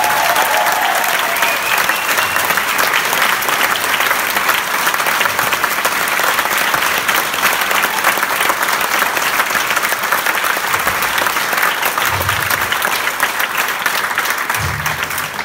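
A large crowd of performers and audience applauding, with dense steady clapping that thins out near the end.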